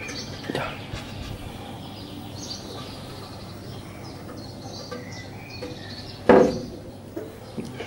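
Small birds chirping over steady outdoor background noise, with a single loud knock about six seconds in from the wooden-slatted cart being handled, and a lighter knock near the start.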